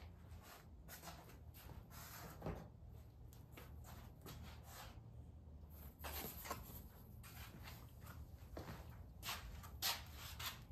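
Faint rustles and light knocks of someone moving about and handling painting gear, with a few louder clicks, over a low steady hum.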